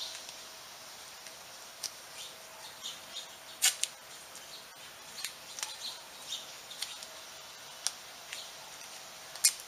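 Hands scraping and raking through loose dirt and dry pine straw, giving irregular small crackles and scrapes, with two sharper ones about three and a half seconds in and near the end.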